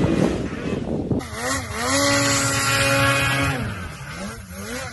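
Snowmobile engine at high revs. For about the first second there is a rushing mix of engine and spray as the sled skims across slushy water. Then the engine's pitch climbs, holds high and steady for about a second and a half, drops, and rises and falls in quick blips near the end as the sled carves a steep powder slope.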